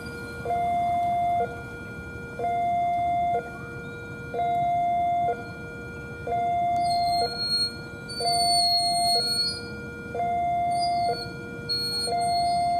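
Indonesian railway level-crossing alarm sounding, an electronic two-tone signal alternating between a high and a low tone about once a second. A thin high squeal joins in briefly around the middle.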